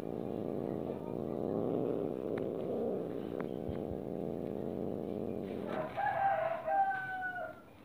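Domestic cat growling in a low, continuous rumble, then about six seconds in breaking into two short, higher-pitched yowls: the cat objecting to being stroked.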